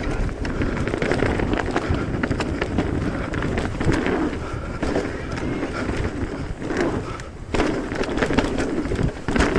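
Mountain bike being ridden fast down a dirt trail: tyres rolling over dirt and roots, with the bike clattering and rattling throughout and wind noise on the microphone.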